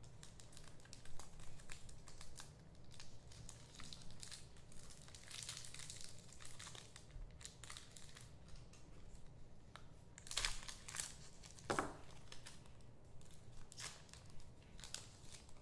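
Packaging crinkling and rustling, with many small clicks, as trading card packs are opened and the cards handled. Two louder crinkles come about two-thirds of the way through.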